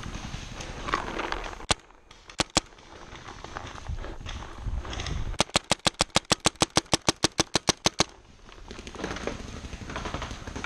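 Paintball marker firing: a few single shots about two seconds in, then a fast, even string of about twenty shots at roughly eight a second lasting about two and a half seconds.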